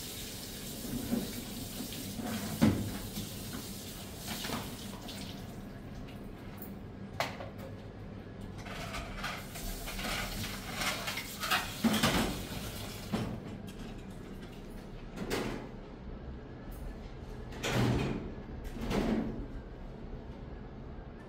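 Kitchen work: a steady hiss for the first few seconds, then scattered knocks and clatter.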